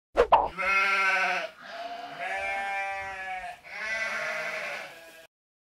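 Two quick clicks, then three long, wavering pitched calls of about a second to a second and a half each, with short gaps between them.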